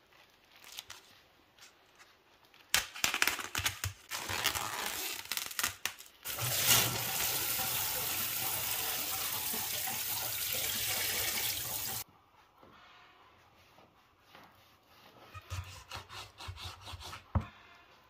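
Crinkling and rustling of the plastic wrap on a pack of frozen chicken wings, then a kitchen tap running steadily for about six seconds and shutting off abruptly, then light handling of the raw wings.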